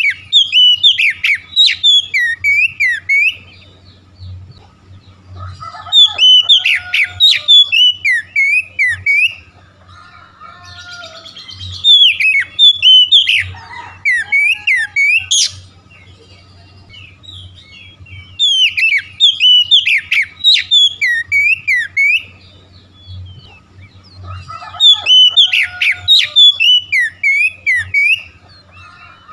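Oriental magpie-robin singing: bursts of rapid, varied whistles and chirps, each about three seconds long, repeating roughly every six seconds.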